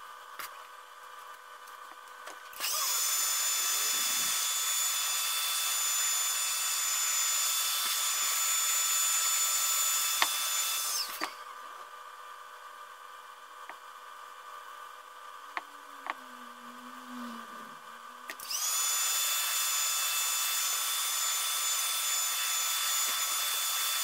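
Electric heat gun blowing hot air over a freshly stained wooden gunstock to dry the stain: a steady fan hiss with a high motor whine, switched on for about eight seconds, off, then on again for about six seconds. Each run starts and cuts off abruptly.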